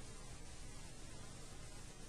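Faint steady hiss with a low hum: the background noise of an old recording's soundtrack.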